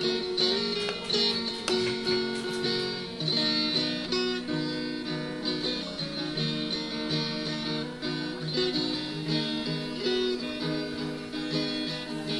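Background music of plucked acoustic guitar, playing a steady, rhythmic pattern of notes.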